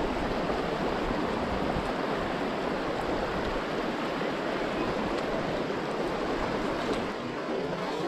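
Fast, shallow river water rushing steadily over a rocky bed, close to the microphone.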